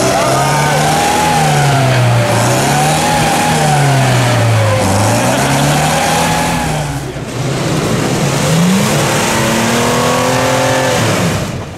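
A car engine revving hard, its pitch rising and falling again and again, with a short dip about seven seconds in before it revs up once more. It is the sound of a vehicle working to get through or out of deep mud.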